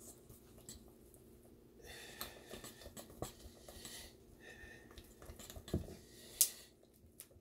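Thick cake batter being beaten by hand in a stainless steel mixing bowl, the utensil scraping and clicking irregularly against the metal, with a sharper click about six and a half seconds in.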